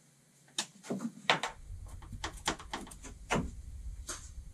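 A quick, irregular run of sharp clicks and knocks from handling tools and parts inside a steel van body, with a low rumble coming in about a second and a half in.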